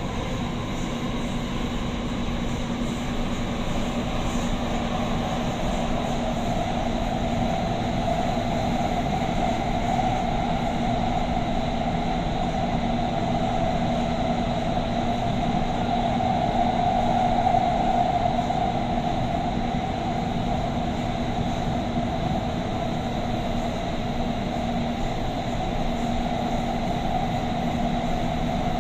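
Doha Metro train running through an underground tunnel, heard from inside the carriage: a steady rumble of wheels and running gear with a steady low hum underneath, swelling a little about two-thirds of the way through.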